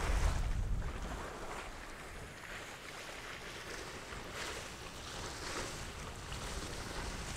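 Water rushing and splashing along the hull of a sailing yacht under way, coming in repeated swells, with wind buffeting the microphone in the first second.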